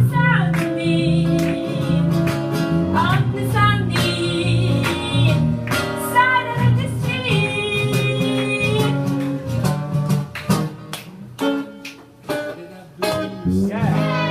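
A small jazz group of guitar, bass, shakuhachi and voice playing a swing tune, with plucked guitar and walking bass under sliding melody phrases. The playing thins out and dips in level in the last few seconds as the tune winds down to its close.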